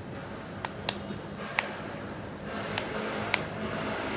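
Silicone bubbles of a pop-it fidget spinner being pressed back through one at a time, giving a few soft, irregularly spaced pops.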